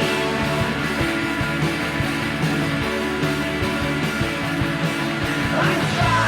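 Background music: a guitar-led rock song with a steady beat.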